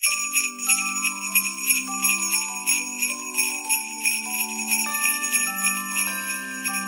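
Sleigh bells shaken in a steady rhythm, about three to four shakes a second, over a tune of held notes: a Christmas jingle.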